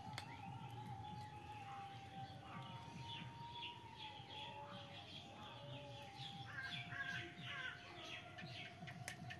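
Faint, quick chirping of small birds, busiest about two-thirds of the way through, over a thin, slightly wavering high tone.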